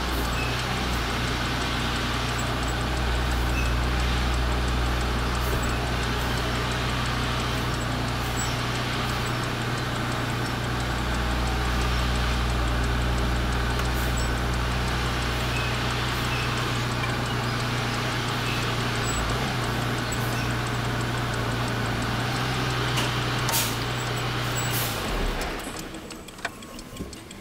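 Semi truck's diesel engine running steadily, heard from inside the cab, with a sharp click about 23.6 seconds in. The engine sound stops abruptly about 25 seconds in.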